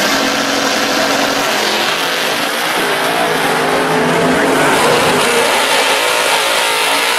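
Drag cars' engines, a first-generation Chevrolet Camaro and a Chevelle, running at the starting line while staging, their idle wavering a little in pitch.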